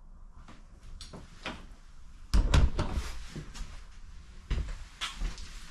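Knocks and thumps of someone moving through a static caravan: footsteps on the hollow floor and doors or fittings being handled. The loudest, deepest thump comes about two and a half seconds in.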